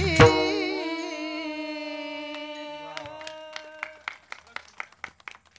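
The end of a sung devotional bhajan: a last drum stroke just after the start, then the singers' held final note fading away over about four seconds. Small hand cymbals (tal) then tap out a run of ringing strikes that speed up as they die down.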